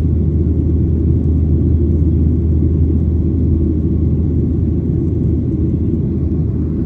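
A steady low rumble, even and unbroken throughout.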